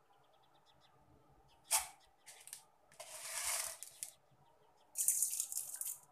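Chana dal frying in hot oil in a pan, sizzling in short bursts of hiss about three and five seconds in, with a sharp click a little before two seconds.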